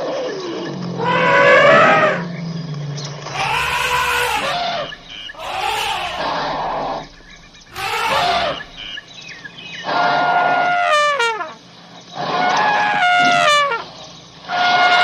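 Elephants trumpeting: a series of about seven loud calls, each a second or so long, that swoop up and down in pitch. A low rumble runs under the first few seconds.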